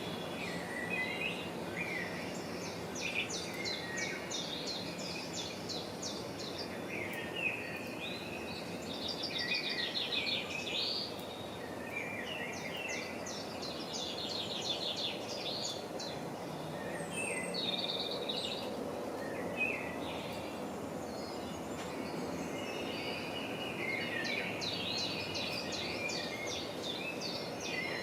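Songbirds singing, rapid trills and short chirps repeating every few seconds over a steady background hiss.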